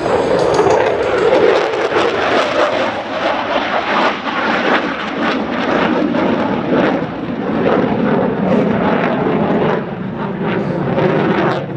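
Lockheed Martin F-16C fighter jet engine, loud and crackling, as the jet climbs away steeply overhead.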